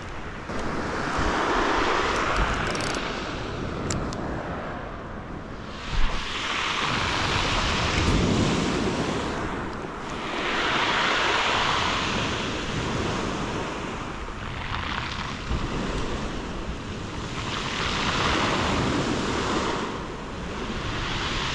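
Sea waves breaking and washing on the shore, surging in about every four seconds, with wind buffeting the microphone. A single short thump about six seconds in.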